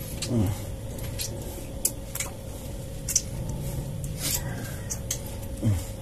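Sticky bird lime, made from rat glue and liquid rubber latex, being kneaded and pulled apart between wet fingers, giving about half a dozen short tacky clicks and smacks. The mix is still too runny. Two short low sounds falling in pitch come near the start and near the end, over a faint steady hum.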